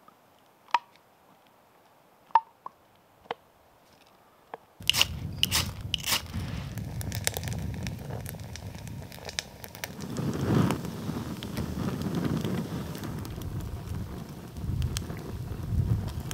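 Campfire being lit with fire starter gel: a few sharp, isolated crackles, then about five seconds in a sudden rush of noise with a low rumble and a burst of crackling and popping that carries on.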